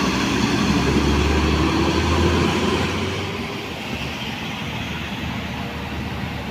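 A large bus on a Mercedes-Benz OH 1525 chassis driving past, its low diesel engine note loud for about three seconds and then fading as it moves away, with road and tyre noise.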